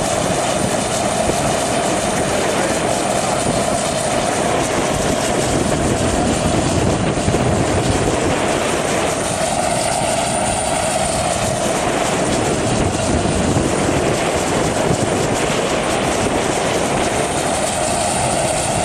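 Jet engine ground start cart running loud and steady, a constant whine over a broad rush of air noise, as it spools up the jet car's turbine for a start.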